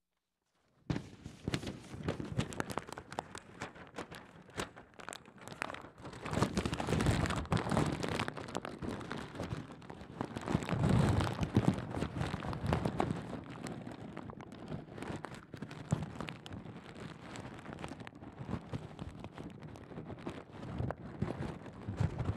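A large sheet of paper crumpled and bundled tightly around a live microphone, heard through the amplified mic as dense crackling and rustling that starts about a second in and swells twice.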